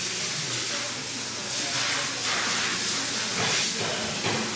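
A steady hiss that swells irregularly, over light handling of shattered brass piston shoes on a steel workbench.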